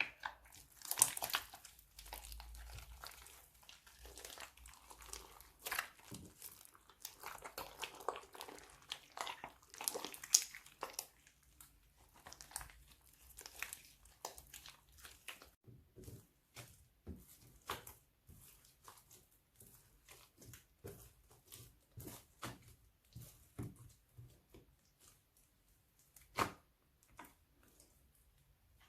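Slime being handled by hand: irregular soft crackles, squishes and small pops. They are busiest in the first half and thin to scattered clicks later on.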